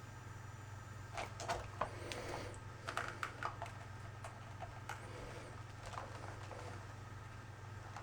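Light clicks and taps of handling a megohmmeter and its test leads during an insulation test of a floor-heating cable, clustered over a couple of seconds early on and a few fainter ones later, over a steady low hum.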